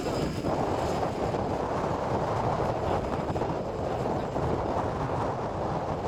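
A 700-size radio-controlled helicopter flying overhead, its rotor and engine noise mixed with steady wind rumble on the microphone in strong wind.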